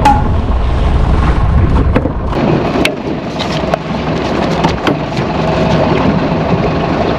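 Boat engine running under a low rumble of wind or hull noise, with several sharp clicks and knocks on board; the low rumble eases about three seconds in.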